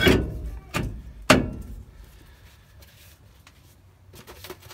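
New rear brake rotor slid over the wheel studs and seated against the hub of a Ford F-150: three metal clunks in the first second and a half, then a few faint clicks near the end.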